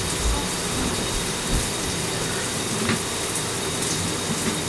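Shower water running steadily into a bathtub, with a few soft thumps.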